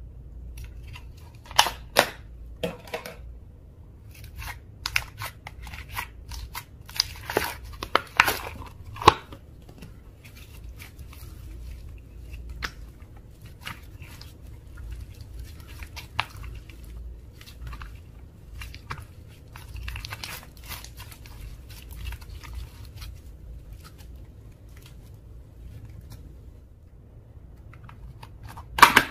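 Slime being squished and stretched by hand, giving irregular wet clicks, pops and crackles. They come thickest about two seconds in and from about five to nine seconds in, are sparse in between, and there is another loud burst of pops near the end.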